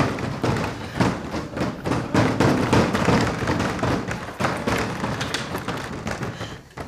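Wooden double door being banged and rattled, with repeated heavy thuds and knocks coming close together and dying down near the end.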